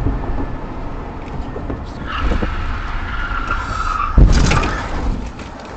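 Car tires squealing under hard braking for about two seconds over the rumble of road noise, ending in a sudden loud thump about four seconds in.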